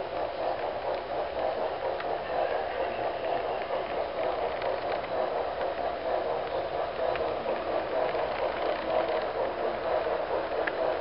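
HO scale model train cars rolling past on the track: a steady rumble of wheels on rail, with a few faint clicks.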